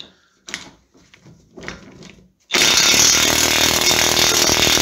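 A few light tool clicks and knocks, then about two and a half seconds in a power tool starts and runs loudly and steadily for about three seconds, undoing a front suspension nut.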